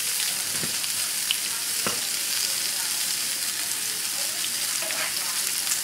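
Panko-breaded veal and chicken cordon bleu cutlets frying in a pan, a steady slow sizzle of hissing oil. Two light clicks come in the first two seconds, and near the end a metal spatula slides under one cutlet to lift it.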